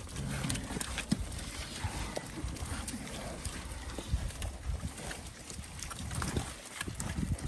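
Pigs munching bread: many small irregular crunches and smacking chewing clicks over a low rumble.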